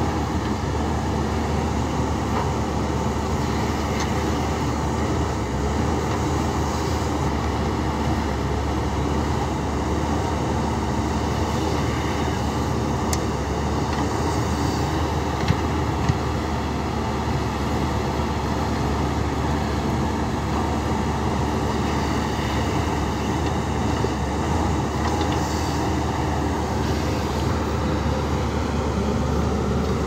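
JCB backhoe loader's diesel engine running steadily under load as the backhoe digs soil, with a couple of brief knocks about halfway through.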